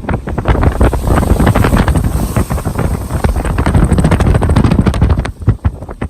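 Strong wind blowing across the microphone: loud, gusty buffeting with crackling, easing briefly about five seconds in.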